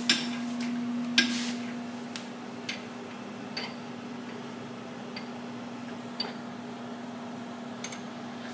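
Sharp metal clicks and knocks from clamping a workpiece in the machine vise of an Emco PC Mill 50 benchtop CNC mill: two loud ones in the first second or so, then fainter clicks every second or two. A steady hum from the powered-up mill runs underneath.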